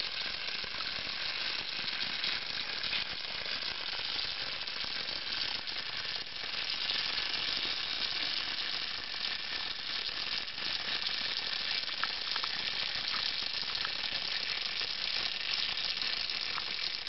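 Beer foam fizzing out of the neck of a green glass bottle, a steady crackling hiss of bursting bubbles with small ticks of spray. The beer was left in the freezer, and the gas coming out of the half-frozen beer drives the foam slowly up out of the bottle.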